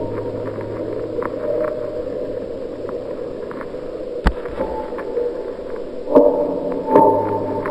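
Eerie ambient drone of layered low tones, with a faint high tone that drops out and returns and scattered faint clicks. A single sharp knock comes about four seconds in, and the drone swells twice near the end.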